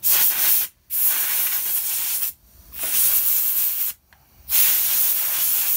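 Compressed-air blow gun hissing in four long blasts with short gaps, blowing leftover powdery residue off the end of a motorcycle fork lower.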